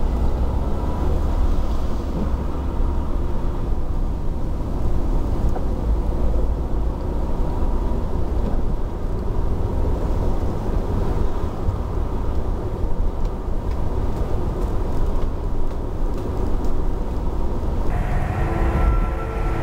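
A car driving slowly, heard from inside the cabin: a steady rumble of engine and tyre noise. Near the end, a different sound with several steady tones takes over.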